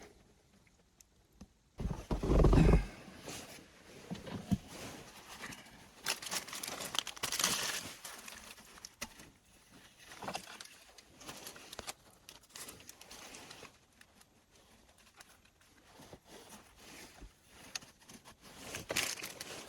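Hands working at a boat engine while topping up and checking its oil: scattered clicks, knocks and rustles, with one loud low thump about two seconds in.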